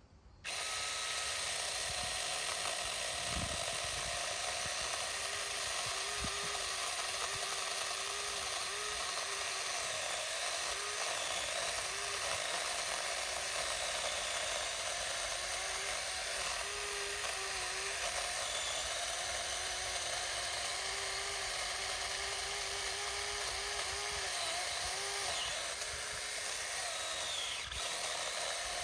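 Saker mini electric chainsaw starting about half a second in and running steadily while cutting into a small tree, its motor whine dipping and wavering in pitch as the chain loads up in the wood.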